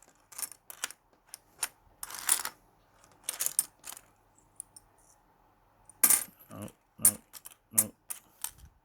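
Bronze pre-decimal Australian pennies and halfpennies clinking against each other as they are picked through by hand: a run of sharp metallic clicks with two brief rustling shuffles, and a quicker cluster of clinks in the last few seconds.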